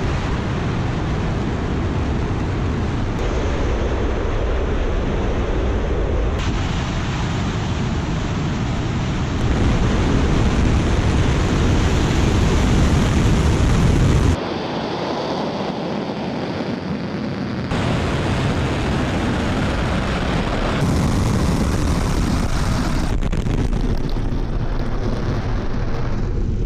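Soyuz-2.1a rocket engines firing at liftoff: a loud, continuous rushing rumble strongest in the low range. Its tone jumps abruptly every few seconds as recordings from different pad cameras are cut together.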